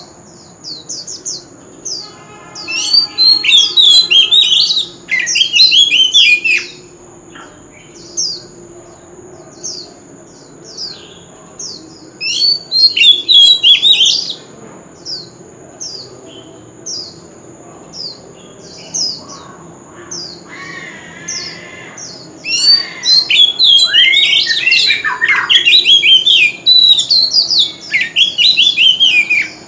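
Oriental magpie-robin singing: three loud bursts of varied, warbling whistled phrases, with quieter runs of short, quick downward-slurred notes in between.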